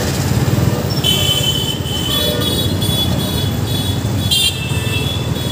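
Busy road traffic: a steady low motorcycle engine and road rumble, with several high-pitched horns tooting on and off from about a second in.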